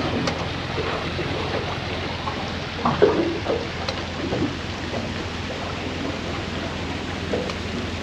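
Steady rush of wind and water noise from the aluminium boat under way on the lake, with a low steady hum underneath and a few irregular splashes or knocks against the hull, the loudest about three seconds in.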